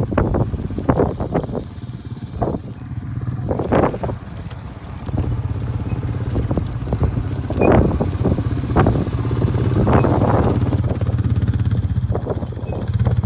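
A motor vehicle's engine running at a steady low drone, with irregular rushing bursts over it.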